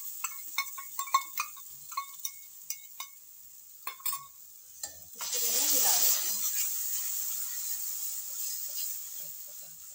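A spoon scrapes and knocks against the pan while the masala is stirred, each stroke giving a short ringing clink. About five seconds in, a loud sizzle starts suddenly as tomato puree hits the hot masala and oil, then slowly fades.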